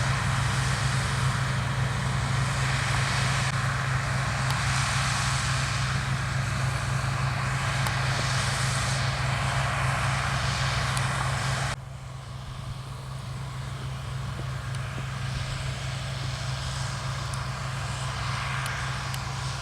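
Heavy diesel farm machinery running steadily at harvest, a constant low engine hum under a rushing mechanical noise. The sound drops abruptly in loudness about twelve seconds in and then carries on more quietly.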